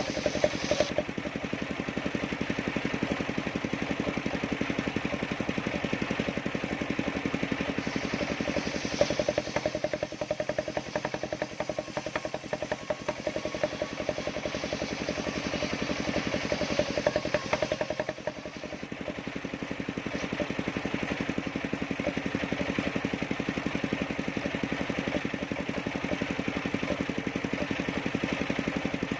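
Engine driving a circular-saw sawmill, running steadily with an even hum, a little fuller for several seconds mid-way and briefly dipping about 18 seconds in.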